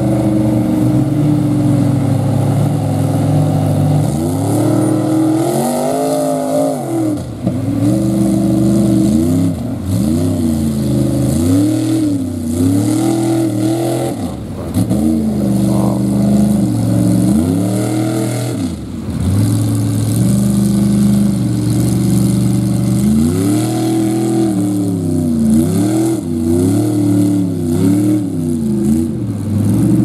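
Lifted Dodge mud truck's engine working through a mud bog, running steadily at first, then revving up and falling back over and over, about every one to two seconds, as the driver works the throttle.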